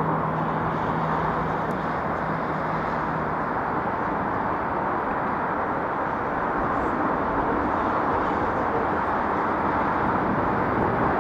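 Steady outdoor background noise, with no distinct bangs or pops. A low hum stops about three seconds in.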